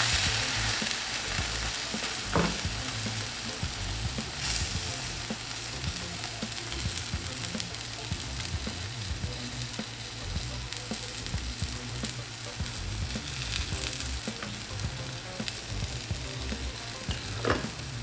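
Omelette frying in oil in a nonstick pan on its second side after being flipped: a steady crackling sizzle, with a few short sharp clicks about two, four and seventeen seconds in.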